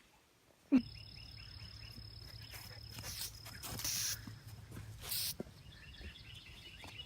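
After a click about a second in, outdoor ambience of insects chirping, with a steady high thin trill and a low hum underneath. A few short hisses come around the middle.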